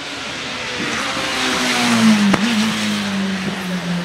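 Nissan Primera GT BTCC Super Touring car's 2.0-litre naturally aspirated SR20DE four-cylinder racing engine passing close at speed. The engine and intake note grows to a peak about two seconds in, then drops a little in pitch and holds as the car moves away. There is a single sharp crack at the loudest moment.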